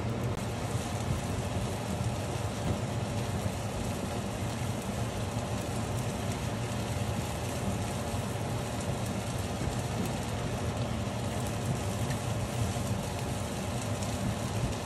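Food frying in oil in a nonstick pan: a steady sizzle with faint crackling, over a steady low hum.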